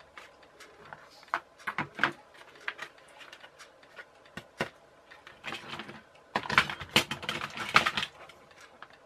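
Hard plastic toy boat parts being handled and set down on a workbench: scattered clicks and knocks, turning into a busier clatter a little past the middle.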